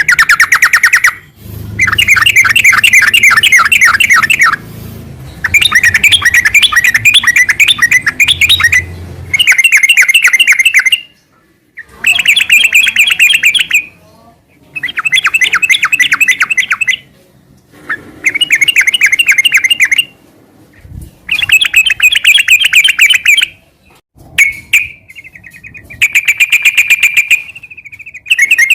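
Sooty-headed bulbul (trucukan) singing loudly in long runs of rapid chattering notes, each phrase a few seconds long with short pauses between. One phrase near the end is a smoother, steadier whistle.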